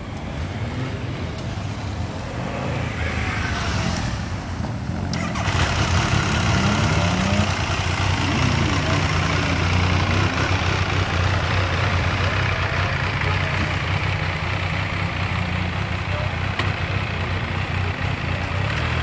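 Motorcycle engines idling close by with a steady low hum, while other bikes rev up and pull away in short rising and falling revs now and then.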